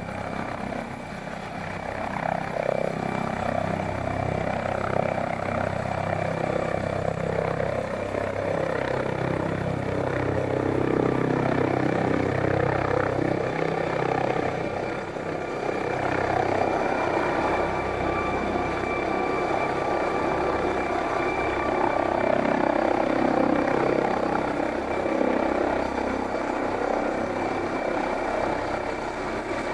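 MD 902 Explorer air ambulance helicopter taking off: a steady turbine whine and rotor noise that grows louder as it lifts off partway through and climbs away close overhead.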